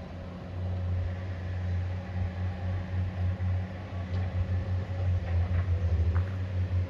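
Engine running with a low, steady rumble.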